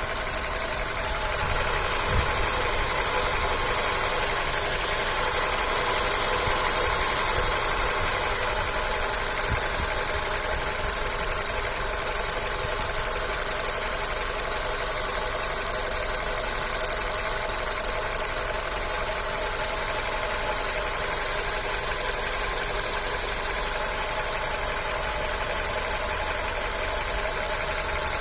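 An engine running steadily at idle, with a constant high-pitched whistle over it whose cause is unknown.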